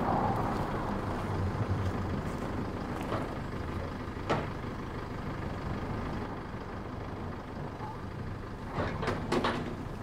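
Vehicle engine idling steadily as a low, even hum. A light knock comes about four seconds in and a few more near the end.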